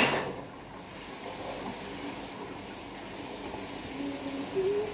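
Steady low hiss of room noise, opened by a short loud noise dying away at the very start. Someone hums a few notes of a tune near the end.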